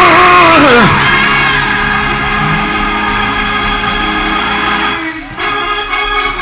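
Organ playing sustained chords under a church service, with a loud voice crying out over it in the first second, its pitch falling away.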